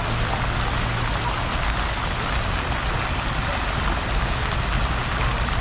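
Steady rush of splashing, falling water from an outdoor water-plaza fountain, with a low steady rumble underneath.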